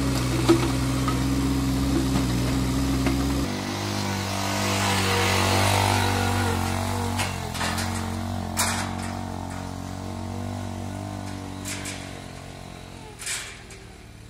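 An engine idling steadily close by, cut off suddenly about three seconds in. Then an ATV engine pulling a loaded trailer rises and slowly fades as it drives away, with a few sharp knocks and rattles along the way.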